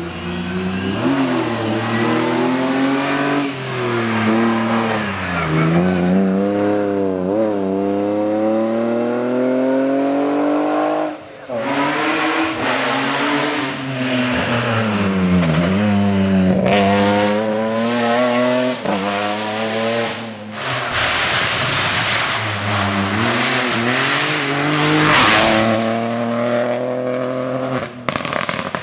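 Rally car engine revving hard, its pitch climbing through each gear and dropping sharply at every shift or lift-off, over several short runs. A sharp loud bang stands out late on.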